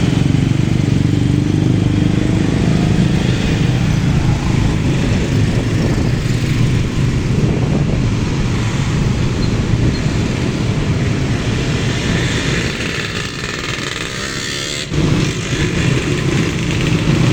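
Motorcycles and other road traffic running past in a steady stream of engine noise. The sound eases off after about twelve seconds and comes back abruptly near fifteen seconds.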